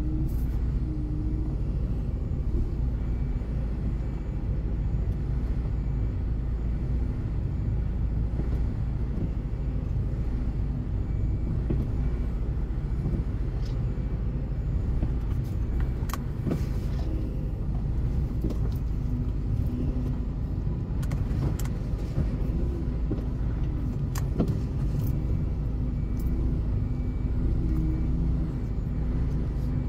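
Steady low rumble of a car on the move, with a few faint clicks over it.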